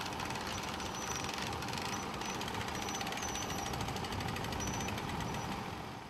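Portable sawmill's engine running steadily with a dense mechanical rattle while the log is turned and clamped on the bed. It fades out at the very end.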